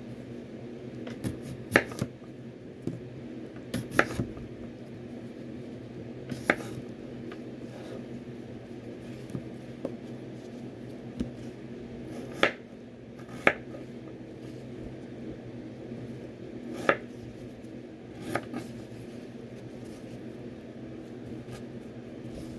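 Kitchen knife chopping vegetables on a cutting board: single sharp chops at irregular intervals, from about a second to several seconds apart, over a steady low hum.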